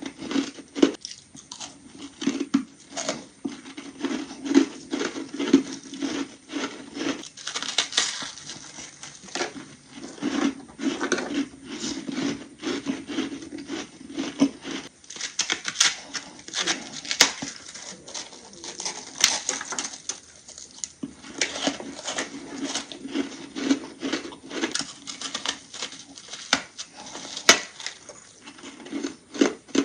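Close-miked biting and crunching of ice: thin chunks cracking between the teeth in a steady run of irregular crunches and crackles.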